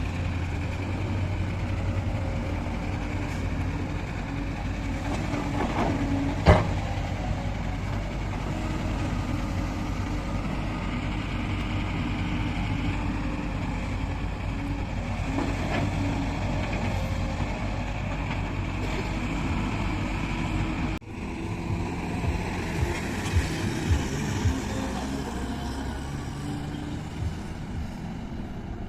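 Heavy diesel engine of a JCB backhoe loader running steadily while loading mud, with one sharp bang about six seconds in. The sound breaks off abruptly about twenty seconds in, then resumes with several short knocks.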